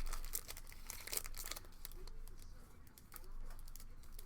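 Foil trading-card pack wrappers crinkling and tearing as packs are opened, in a string of irregular crackles and rustles.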